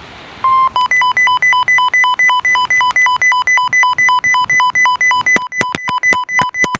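Weather radio alert alarm going off for a new warning: a short tone, then rapid electronic beeps alternating between two pitches. A quick run of sharp clicks comes near the end.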